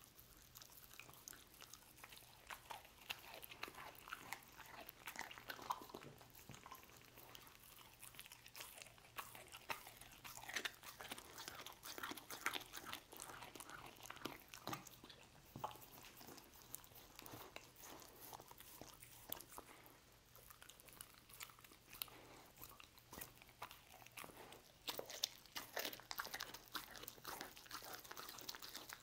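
A dog chewing and biting on a chunk of roast beef, heard up close: an irregular run of crunchy bites and wet chewing. It eases off for a few seconds past the middle and picks up again near the end.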